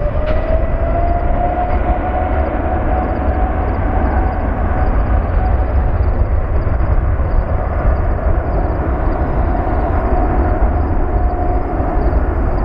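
Jet airliner's engines running at high power: a whine that rises near the start and then holds steady over a deep rumble and a heavy rush of noise.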